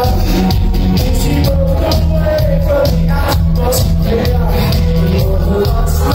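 A rock band playing live at concert volume, with drum hits over a heavy bass line and sustained melodic parts.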